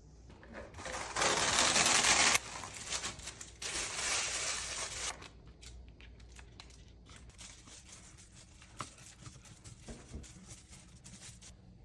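Crinkling and rustling handling noise: two loud spells of dense crackle, then a run of faint scattered crackles and clicks.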